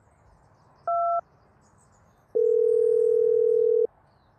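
Phone call being placed: a short beep about a second in, then one steady ringing tone lasting about a second and a half as the line rings.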